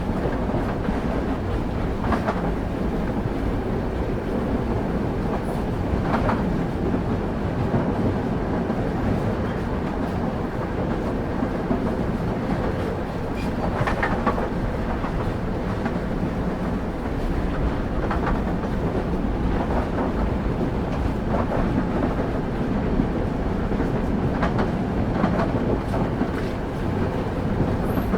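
Train wheels running on the rails at steady speed: a continuous low rumble, with sharp clicks from the rail joints every few seconds at an uneven spacing. Heard from on board a passenger carriage.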